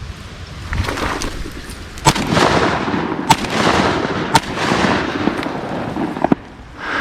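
Three shotgun shots about a second apart, fired at ducks, over a rushing noise.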